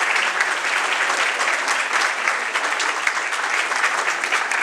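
A crowd applauding: many hands clapping together in a dense, steady patter.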